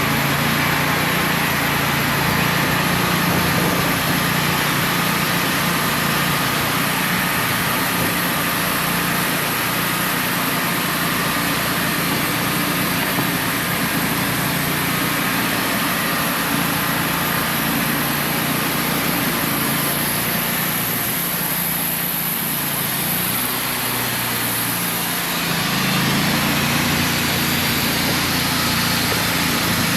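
Wood-Mizer portable band sawmill's engine running steadily, its pitch and level sagging a little past the middle, then picking back up.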